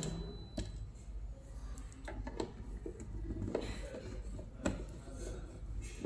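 A screwdriver clicking and scraping in the screws on the underside of a thermal receipt printer as they are undone. There are scattered sharp clicks, the loudest about four and a half seconds in, over a steady low hum.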